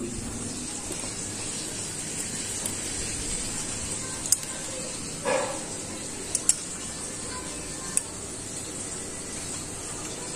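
A few sharp metallic clicks from hand tools at work on the valve adjusters of a Kawasaki Barako 175 engine, over a steady background hiss, with a brief squeak near the middle.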